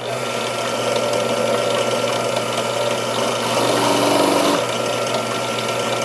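Benchtop drill press switching on and running steadily, a wire wheel brush spinning in its chuck. For about a second, some three and a half seconds in, the sound thickens as the knife blade is held to the wire wheel to scuff it up.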